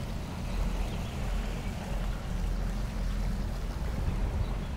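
Motorboat engine running steadily at slow speed while the boat is under way, a low rumble with a haze of water and air noise over it.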